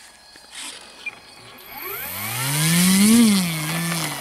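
Electric motor and propeller of an E-flite Cessna 150 Carbon-Z RC plane throttling up for takeoff: a whine that comes in about a second and a half in, rises in pitch to a peak, then drops and settles at a steady lower pitch as the plane climbs away.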